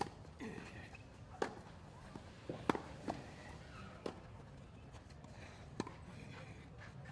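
Tennis rally on a clay court: sharp racket strikes on the ball about every one and a half seconds, some with a softer bounce between them.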